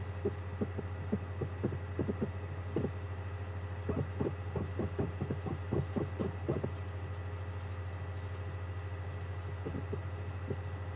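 Steady low hum with a run of short, irregular soft knocks, thickest in the middle, from a Mac's DVD drive spinning and seeking as it reads the disc's titles.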